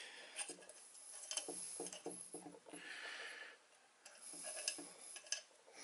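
Faint small metallic clicks and scraping as cotter pins are worked into the holes of the cast vise body, in two clusters with a brief rustle about three seconds in.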